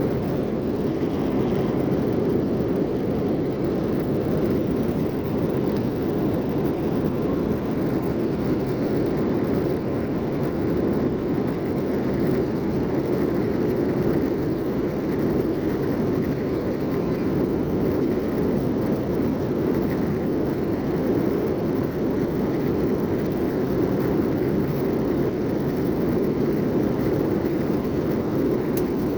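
Steady cabin noise inside an Airbus A321-231 airliner in flight: an even, unchanging rumble from its IAE V2500 turbofan engines and the airflow over the fuselage, heard from a window seat.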